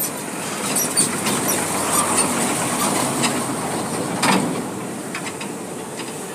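Forklifts running while carrying a large steel plate between them, with repeated metallic clicks and clanks, one louder clank about four seconds in.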